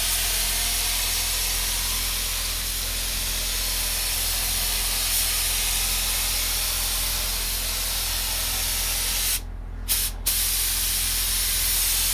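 SRI DeVilbiss gravity-feed spray gun hissing steadily on compressed air at about 28 psi (2 bar) while spraying water-based base coat. The spray stops twice, briefly, near the end.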